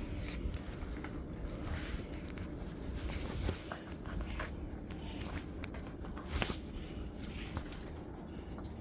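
Puppies roughhousing and play-biting: scuffling, scratching paws and scattered soft clicks.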